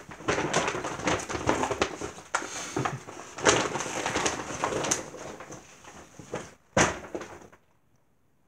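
Paper rustling and crinkling with sharp knocks and clicks of handling, as a wrapped present is opened; it stops about a second before the end.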